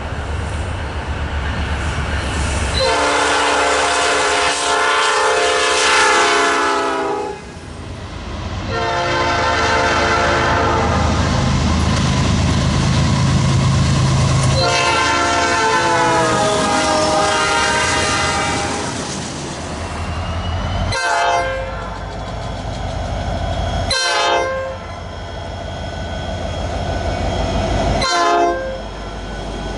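Nathan Airchime P5 five-chime locomotive horn sounding three long blasts, then three short blasts a few seconds apart, over the low running noise of the train.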